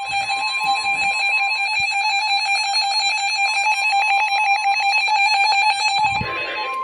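Weather alert radio's electronic alarm: a loud, steady two-pitch tone, pulsing rapidly, that breaks off into a short burst of static about six seconds in. It signals an incoming severe thunderstorm warning.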